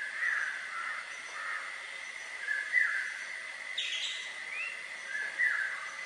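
Background birdsong: a bird repeating a short falling chirp about once every second or two, with a louder, harsher call about four seconds in, over a steady high-pitched whine.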